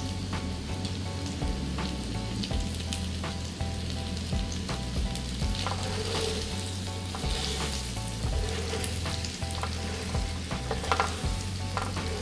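Baby potatoes sizzling and crackling in melted butter and sugar in a nonstick frying pan while a spatula stirs and turns them. The crackle gets busier about halfway through, with a few louder clatters of the spatula and potatoes near the end.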